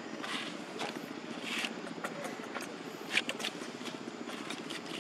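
Light rustles and clicks of macaques moving over dry leaves on bare ground, over a steady low background hum.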